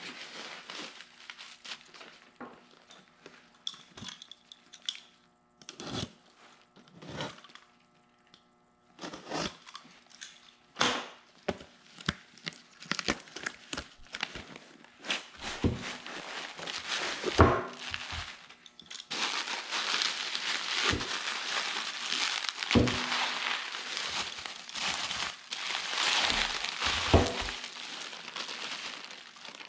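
Cardboard packaging and plastic wrap being handled while a hydraulic cylinder is unpacked. For the first twenty seconds or so there are scattered rustles and knocks. After that comes a steady, dense crinkling of bubble wrap being pulled off the cylinder.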